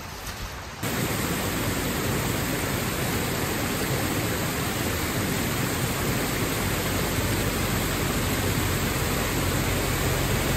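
Steady rush of river water spilling over a shallow rock ledge, starting suddenly about a second in.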